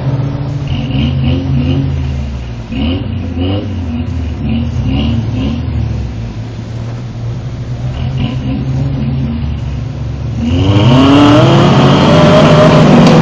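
Truck engines under load, revving again and again while trying to pull a Jeep stuck deep in mud, then revving hard and much louder, rising in pitch, from about ten seconds in.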